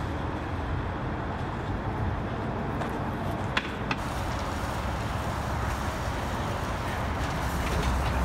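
Steady outdoor background noise, mostly a low rumble, with two short clicks a little before the middle.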